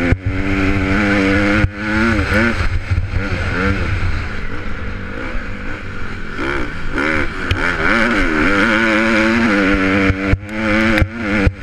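Honda CRF150R four-stroke single-cylinder motocross engine racing, heard close up from a camera mounted on the bike. Its pitch rises and falls repeatedly as the throttle opens and closes, with a short drop about one and a half seconds in and a few more near the end.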